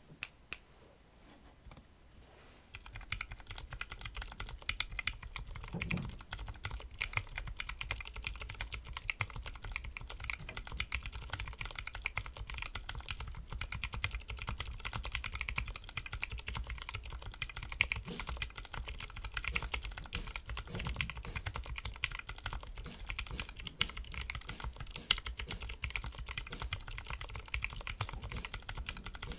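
Typing on a custom mechanical keyboard with lubed Everglide Jade switches in a 3D-printed case and plate: a steady, fast stream of keystrokes that starts about two and a half seconds in.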